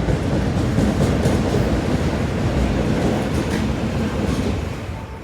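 Osaka Metro Midosuji Line train running past the platform, a steady rumble of wheels on track that fades near the end.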